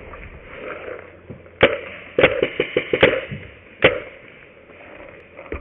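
Paintball markers firing: a run of about eight sharp pops, a quick burst of them in the middle, over a steady background hiss.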